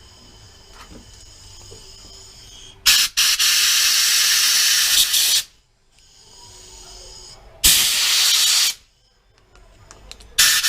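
Compressed air blasting through a pressure washer's small-engine carburetor to clear its passages and jets: three hissing blasts, a long one about three seconds in, a shorter one near eight seconds, and a brief one at the end.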